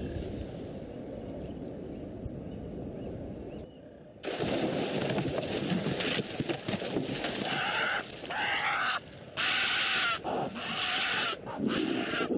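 Wind rumbling on the microphone, then about four seconds in a sudden loud burst of splashing and thrashing as a wildebeest is pulled into the water of the pool. Repeated high wavering cries run over the splashing in the last few seconds.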